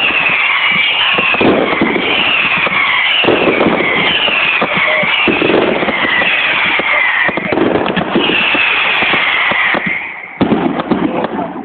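Aerial fireworks display: dense, loud crackling and popping of bursting shells, with repeated high whistling tones that fall in pitch about once a second. It drops off briefly about ten seconds in, then crackles again.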